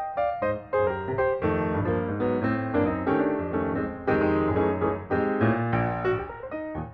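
Background piano music, a quick run of notes with a steady pulse.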